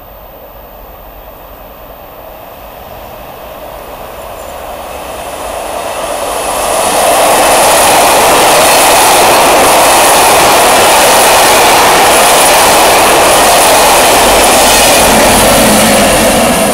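Push-pull passenger train of M4 coaches propelled by SNCB class 21 electric locomotive 2137, approaching and passing through a station. The rumble builds over the first several seconds, then becomes a loud, steady rush of wheels on rail as the coaches go by, with the locomotive passing near the end.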